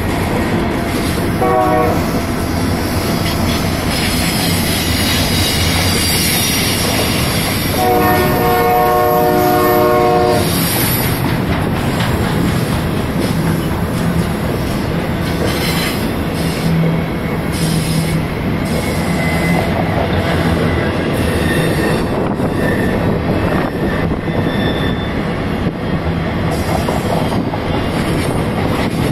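Union Pacific freight train of gondola cars rolling past with a steady rumble. Its locomotive horn sounds a short blast about two seconds in and a longer blast of about two and a half seconds around eight seconds in. Brief high wheel squeals come in the second half.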